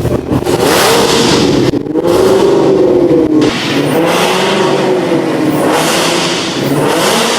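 Car engine revving, its pitch rising and falling in several swells.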